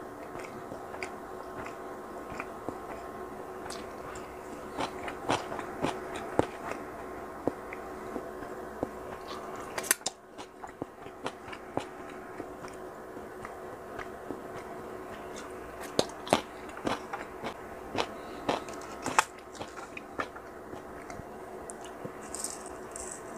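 Scattered clicks and taps of plastic takeout food containers and cups being handled, over a steady hum, with a few short rustles near the end.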